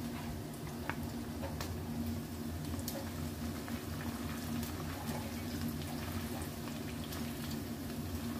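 A steady low hum, with scattered light clicks and wet squishing from chopsticks working seasoned, breadcrumbed raw chicken in a metal bowl.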